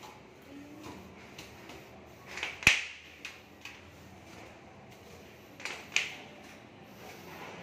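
Soft grass broom (walis tambo) sweeping dust down tiled stair steps. Twice a brushing swish builds up and ends in a sharp flick, the first with a hard tap of the broom on the step.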